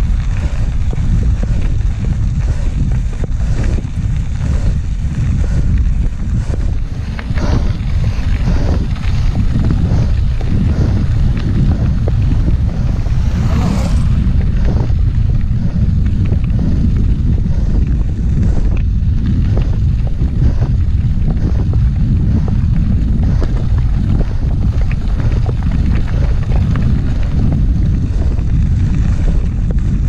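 Wind buffeting the bike-mounted camera's microphone as a mountain bike rolls along a gravel road, with a steady low rumble of tyres on the loose surface. Scattered knocks and rattles come through, mostly in the middle stretch.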